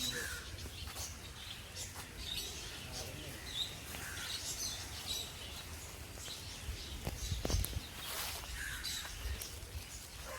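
Small birds chirping now and then over a low background rumble, with a few light knocks.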